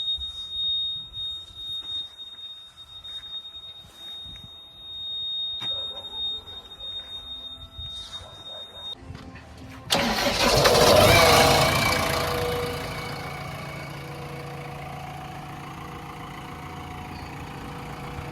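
A steady high-pitched warning tone sounds and then stops. About ten seconds in, a diesel engine starts with a loud burst and settles into a steady idle.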